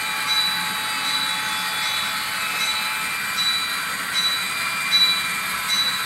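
Sound-equipped HO-scale model diesel locomotives, an Alaska Railroad GP38-2 and GP40-2, running with a steady diesel engine drone from their small onboard speakers. A high tone pulses through it a little more than once a second.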